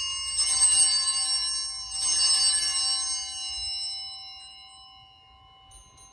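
Altar bells (Sanctus bells) rung at the elevation of the host during the consecration. They are struck twice, shortly after the start and again about two seconds in, and each ring hangs on and fades away over the next few seconds.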